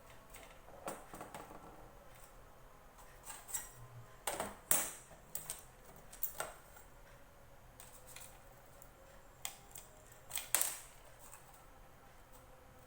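Scattered clicks and light metallic clatter from small parts and tools being handled while an impulse bag sealer is put back together, with the loudest knocks about four and a half and ten and a half seconds in.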